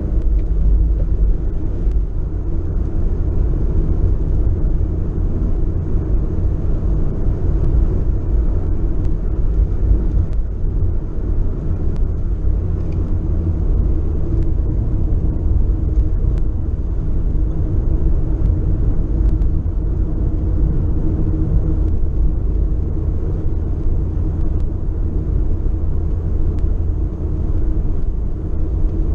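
BMW 318is (E36) 1.8-litre four-cylinder engine running under load at track speed, heard from inside the cabin mixed with road and wind noise; the sound stays steady.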